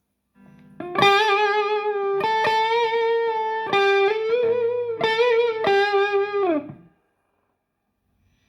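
Electric guitar played through a Donner Force 2 mini preamp pedal set for clean breakup with reverb: a slow melodic phrase of sustained notes with vibrato, starting about a second in. The last note slides down in pitch and stops about seven seconds in.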